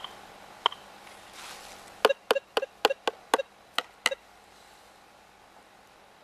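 Minelab Gold Monster 1000 gold detector giving short, sharp beeps: one about a second in, then a quick run of about nine between two and four seconds in, over a faint steady hum.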